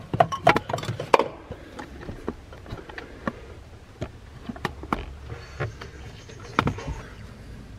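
Scattered light knocks and clicks of hands handling parts, irregular and denser in the first second, over a faint low hum.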